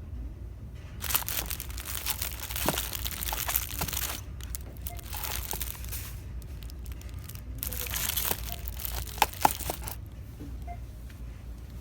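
Crinkly packaging rustling as it is handled, in two spells of a few seconds each, the second ending in a couple of sharp clicks.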